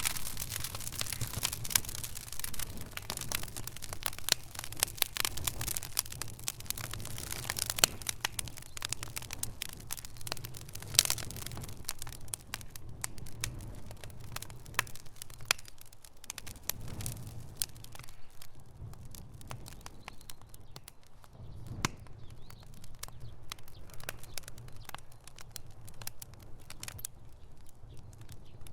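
Fire crackling: many sharp pops and snaps over a steady low rumble, coming thick and fast at first and thinning out after the middle.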